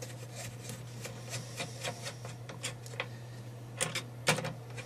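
Screwdriver backing a screw out of a VCR's tape-mechanism chassis: a run of small faint clicks and ticks, with two sharper clicks near the end.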